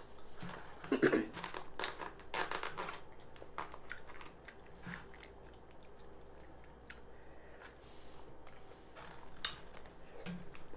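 A person chewing a mouthful of fufu and egusi stew, with wet smacks and clicks of the mouth. The smacks are busiest in the first three seconds and again near the end.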